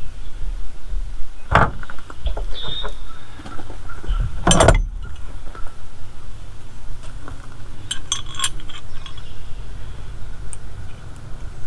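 Metal hoe parts and hand tools clinking and knocking together while a wheel hoe is bolted together: a knock about a second and a half in, a louder sharp clank near five seconds, and a quick cluster of ringing clinks about eight seconds in.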